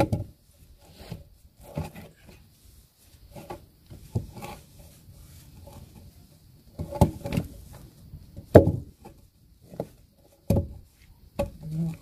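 A round wooden log being shifted and knocked against brick supports as it is set level: a string of irregular knocks and thuds, the loudest about seven, eight and a half and ten and a half seconds in.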